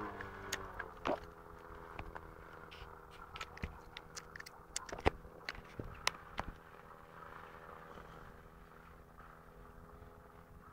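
Piper J3 Cub's engine droning steadily at a distance, slowly growing fainter. A scatter of sharp clicks and taps close to the microphone in the first six seconds or so.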